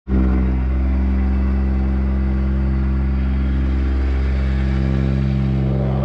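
Plate compactor running at full speed, a loud steady engine-and-vibration drone with a strong low hum. It starts abruptly at full level and holds unchanged.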